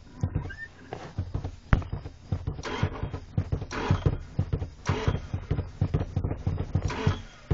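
Work boots pumping a car's pedals: a fast, irregular run of thumps and clicks from the pedals and footwell.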